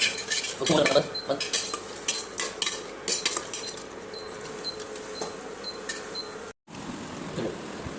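Metal cooking utensil clinking and scraping against a pan, a quick run of clatter for the first three seconds or so, then only occasional taps.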